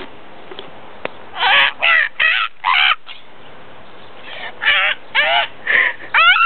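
A person imitating a dinosaur with short, raspy, crow-like screeches: four in quick succession, a pause of about two seconds, then four more.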